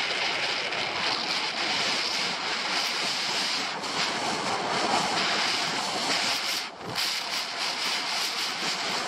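Skis sliding and turning on packed snow, a steady scraping hiss mixed with wind noise on the microphone, with a brief lull nearly seven seconds in.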